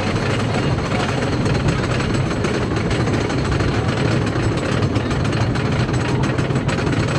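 Wooden roller coaster train being hauled up its chain lift hill: the lift chain runs under the car with a steady, rapid clatter of the anti-rollback ratchet.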